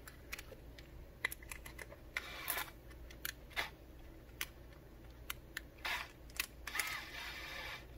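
Faint clicks and rattles of a DeWalt cordless drill being handled, its keyless chuck opened and tightened by hand onto a polishing pad's shaft, with a few short ratcheting stretches.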